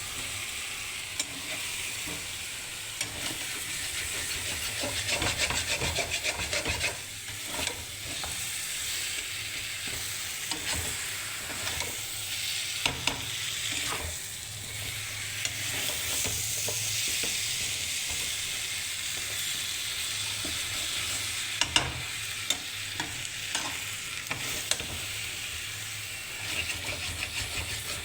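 Eggplant masala frying and sizzling in hot oil in a pan, with a steady hiss, while a utensil stirs it and now and then clicks sharply against the pan.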